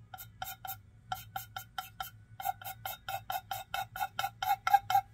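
Underglaze pencil screeching against bisque-fired clay in short, rapid drawing strokes, about four squeaks a second, with two brief pauses, louder towards the end. The surface was not wetted first.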